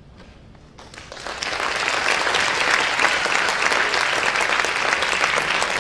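Audience applause: after a brief hush, clapping breaks out about a second in and quickly swells to a steady, dense applause.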